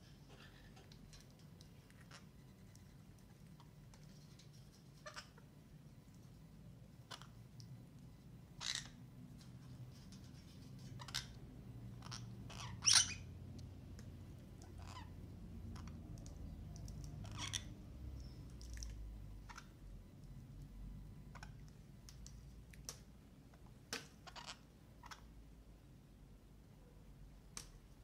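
Orange-fronted parakeets feeding: scattered short clicks and ticks at irregular intervals as they peck, the loudest about 13 seconds in, over a faint low hum.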